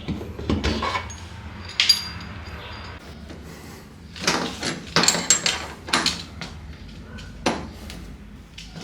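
Irregular metal clinks and knocks as transit bolts are unscrewed with a wrench and pulled from the back of an LG front-load washing machine, with a quick run of clatters partway through.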